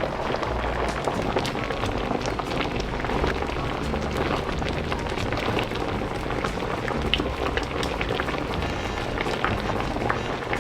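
Food sizzling and crackling in a hot pan, with background music.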